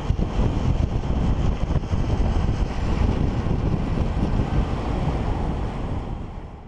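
Wind buffeting the camera microphone at downhill longboarding speed, a gusty low rumble that fades out near the end.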